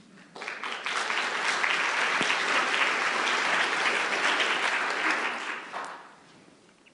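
An audience applauding, clapping that builds quickly and dies away about six seconds in.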